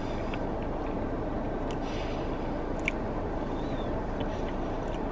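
Steady low rumble of a car idling, heard inside its cabin, with a few faint clicks of chewing.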